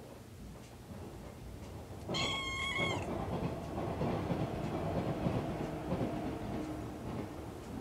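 A young orange-and-white cat gives one drawn-out, high meow about two seconds in, the cry of a former stray wanting to be let outside. Just after it, a low rumbling noise sets in and carries on.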